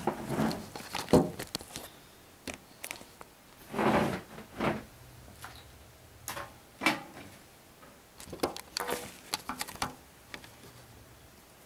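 Handling noise from a video camera being set down and adjusted on a desk: scattered knocks, clicks and rustles with quiet gaps between them.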